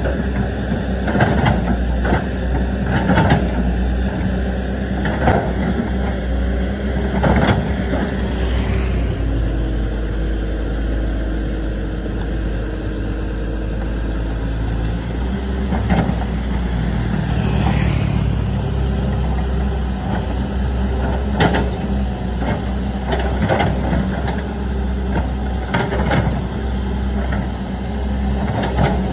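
Caterpillar 320D excavator's diesel engine running steadily, rising and easing with hydraulic load, with repeated sharp clanks and knocks from the bucket working broken concrete and rubble.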